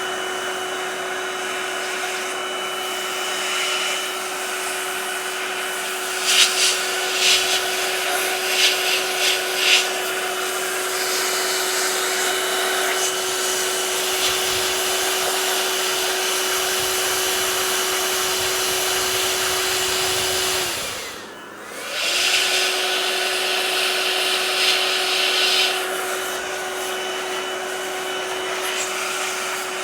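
Electric air blower running with a steady motor whine and rushing air, blowing dust and leftover alcohol out of a laptop's cooling fins. There are a few sharper blasts of air about six to ten seconds in. About two-thirds of the way through it cuts out briefly, the whine falling away, then starts up again.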